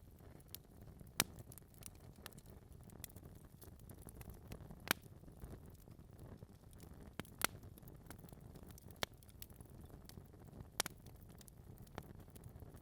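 Wood fire burning in a fireplace: a low steady rumble of flames with sharp crackles and pops of the burning logs, four louder pops spread a few seconds apart.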